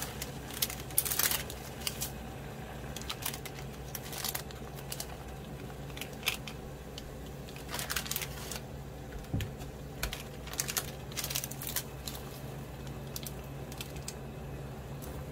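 Plastic instant-noodle seasoning sachets crinkling and rustling in scattered short crackles as they are handled, torn and shaken out over a pot, over a steady low hum.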